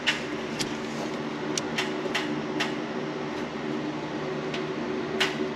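A steady mechanical hum with several fixed pitches, like a fan running, with a scattering of light clicks and taps.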